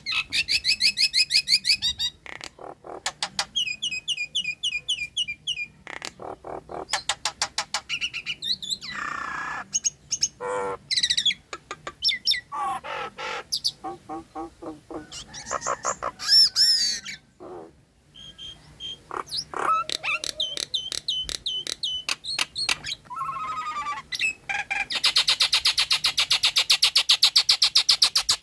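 Nias hill myna singing a varied run of whistles, rapid clicking trills and chattering calls, ending in a long fast rattling chatter.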